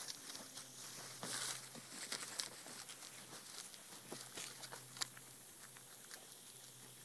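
Nine-banded armadillo foraging: irregular rustling and crunching with small sharp clicks, busiest in the first five seconds and then quieter.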